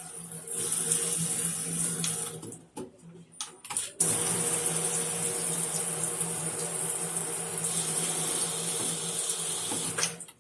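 Water rushing through a Grohe valve, with a faint steady hum. The flow dies away about two and a half seconds in, a few clicks follow, and it starts again abruptly at about four seconds and runs on until it stops near the end.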